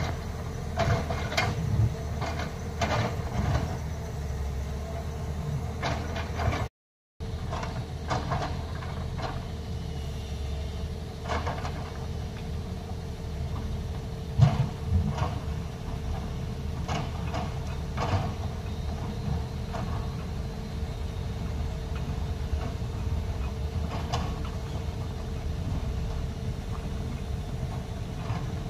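Diesel engine of a loaded Tata tipper dump truck running steadily as it crawls over a muddy, rutted road, with short clanks and knocks from the truck throughout. The sound cuts out briefly about seven seconds in.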